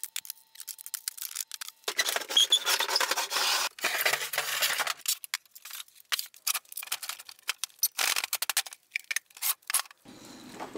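Clatter, knocks and scraping of tools, hardware and scrap being cleared out of old wooden shop cabinets as they are taken apart. There is a dense stretch of harsh scraping noise from about two seconds in to about five seconds in, with quick clicks and knocks around it.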